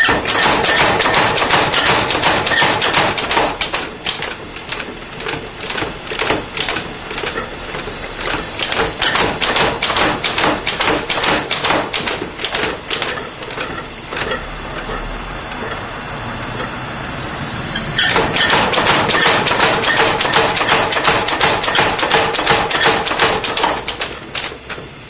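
Hammer blows on hot iron while a blacksmith's tong is being forged: quick runs of several ringing strikes a second, loud at the start and again near the end, with slower, sparser blows in between.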